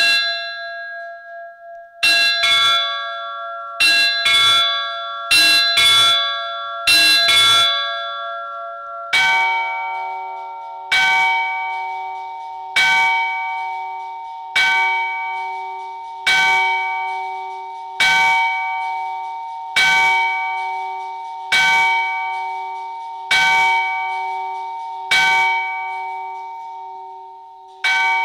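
Church bell sounds played on a smartphone bell-ringing app. There is a single strike, then four quick pairs of strikes, then from about nine seconds a deeper bell struck steadily about every two seconds, each stroke still ringing when the next one lands.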